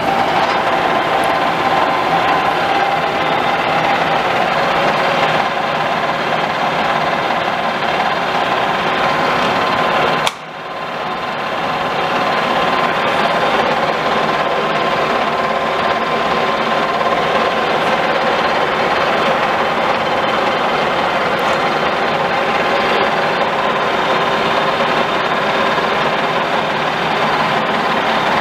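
Clausing Colchester geared-head engine lathe running with its spindle turning: a steady whine of headstock gears over a dense mechanical hum. About ten seconds in the sound drops sharply, then builds back up over a couple of seconds.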